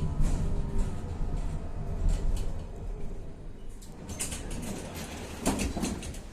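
Tatra-Yug K1M tram running, heard from on board: a low rumble with a faint motor hum that falls in pitch as the noise dies down, as when the tram slows. A few short clicks and squeaks come near the end.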